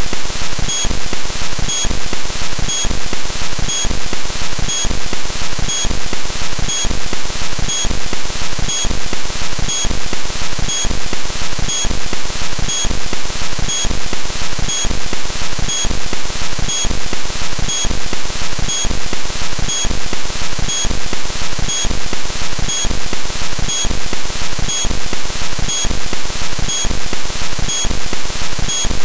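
Loud, hiss-heavy background music with a steady pulse about once a second.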